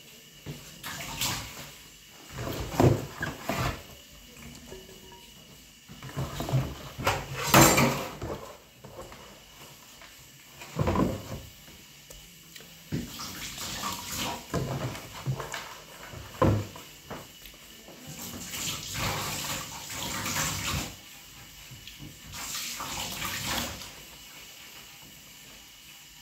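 Water running and splashing in a sink in irregular bursts, as mushrooms are rinsed by hand.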